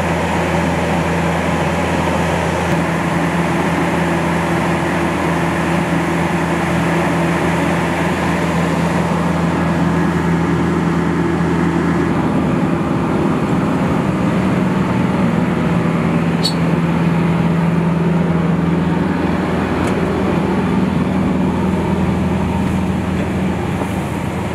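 Steady, loud droning hum of machinery around a parked airliner, with a constant low tone under it. The hum shifts in character about halfway through.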